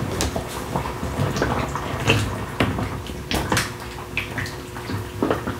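Chopped potatoes being added to a pot of lamb stew: a string of irregular wet plops and splashes as the chunks go into the liquid.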